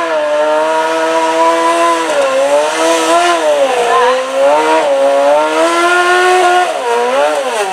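Modified pulling garden tractor's engine running at high revs under load, which the announcer says sounds like an Arctic Cat snowmobile engine. Its pitch dips and recovers several times, then falls sharply near the end as the run comes to a stop.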